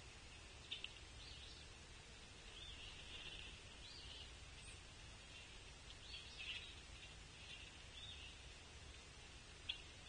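Near silence with faint outdoor ambience: a steady high hiss with scattered soft bird chirps, and a couple of light taps about a second in and again near the end.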